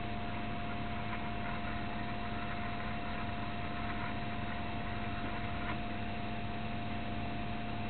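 Steady hiss and hum from a Sputnik 402 cassette recorder running on after the music on the tape has ended, with a thin steady tone held throughout.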